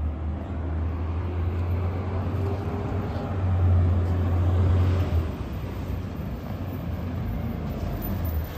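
Garbage truck engine running with a steady low rumble, louder for a couple of seconds around the middle.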